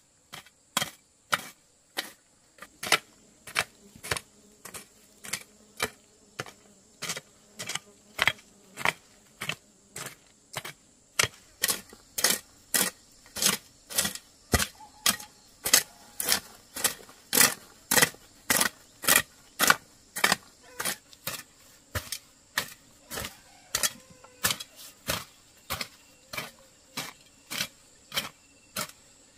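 Steady, repeated sharp strikes, about two a second, growing louder about eleven seconds in.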